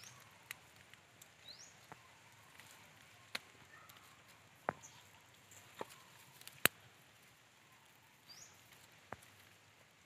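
Scattered sharp clicks and small snaps from hands working a stick-and-string ground snare into dry soil and twigs, the loudest snap about two-thirds of the way through. A few short, high, rising chirps sound now and then behind them.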